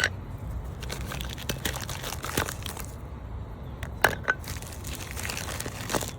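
Scattered clicks and rustles of new brake pads being handled and turned over, with a sharper click about four seconds in.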